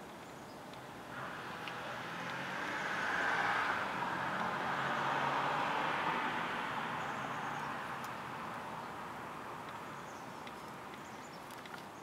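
A car driving past: a rush of tyre and engine noise that swells from about a second in, is loudest around the middle, and slowly fades away.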